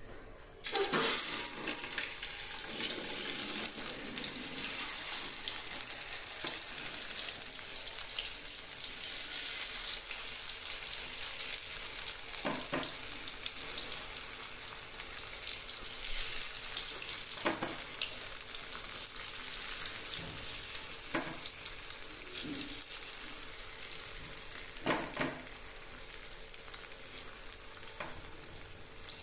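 Batter-coated potato slices deep-frying in hot oil in a kadai: a loud, steady sizzle that breaks out suddenly about a second in as the first slices go into the oil, easing slightly later on. A few light clicks come through it.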